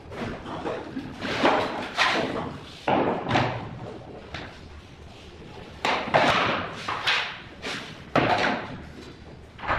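Click-lock wooden floor planks being laid: irregular knocks and thumps as planks are set down, pressed and knocked into place, about one or two a second with a quieter stretch around the middle.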